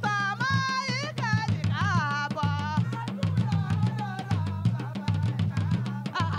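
Traditional Yoruba drum ensemble playing a fast, dense rhythm on cord-laced barrel drums, struck with bare hands and curved sticks, with group singing over the drums in the first half.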